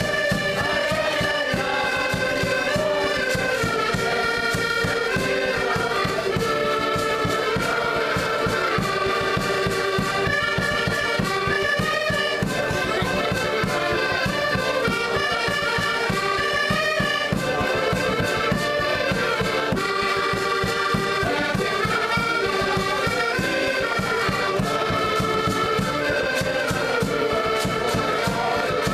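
An ensemble of diatonic button accordions (Portuguese concertinas) playing a lively folk tune together in full chords, with a bass drum beating out the rhythm underneath.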